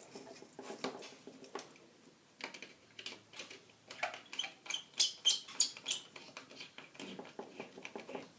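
Small clicks, taps and scrapes of electrical wiring being handled and fitted into terminals, with a quick run of sharper clicks about five to six seconds in.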